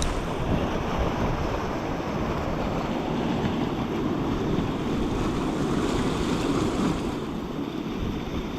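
Steady rush of flowing river water, the South Platte running through a canyon, with no breaks or distinct events.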